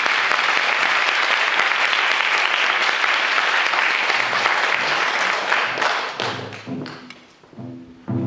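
Audience applauding, loud and steady, then dying away over the last two seconds as music with low notes starts underneath.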